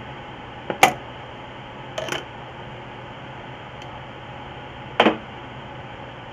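Hand tools and muffler parts being picked up and set down on a workbench: three short metallic knocks, about a second in, at two seconds and at five seconds, the first and last loudest, over a steady hiss.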